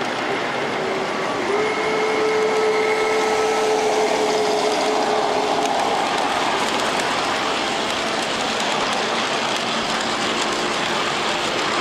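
G scale model freight train of tank cars rolling past on the track, a steady running noise of wheels on rail. A steady held tone sounds for about four seconds, starting about a second and a half in.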